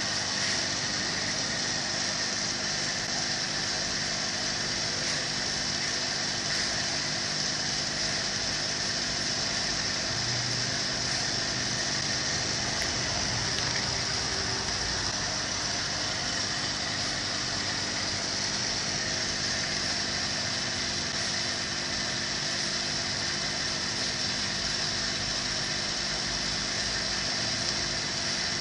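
Aquarium pump running with a steady hum and hiss.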